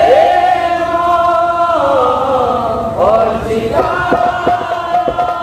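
Male voices singing a drawn-out devotional line of a Sambalpuri Christian kirtan, with long held notes that slide down in pitch. Percussion strokes come in about four seconds in, as the kirtan's music starts.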